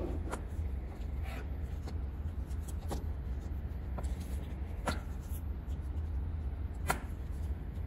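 Hands handling small objects: scattered light clicks and rubbing, the sharpest about five and seven seconds in, over a steady low hum.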